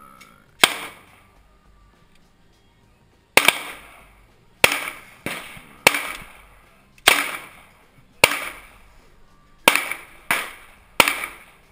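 Gunshots at an outdoor range: about ten single shots at uneven intervals, each a sharp crack with a short echoing tail, with a gap of nearly three seconds after the first.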